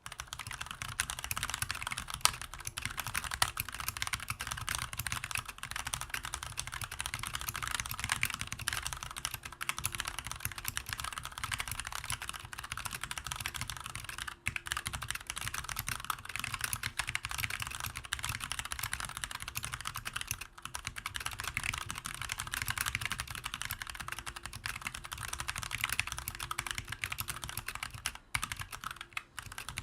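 Fast, continuous typing on a GMMK mechanical keyboard with tactile Kailh BOX Heavy Burnt Orange switches: a dense stream of key presses with only a few brief pauses.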